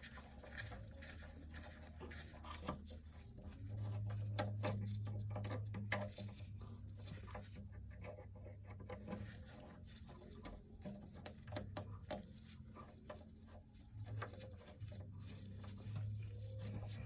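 Irregular light clicks and taps of a ratchet and hex bit working out a brake pad retaining bolt from a motorcycle's front brake caliper, over a low steady hum.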